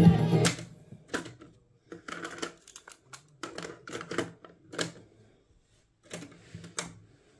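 Music cuts off about half a second in, followed by a string of plastic and metal clicks and clacks from the Panasonic RX-C45LE boombox's cassette deck as its piano-key buttons are pressed and the cassette door is opened and shut.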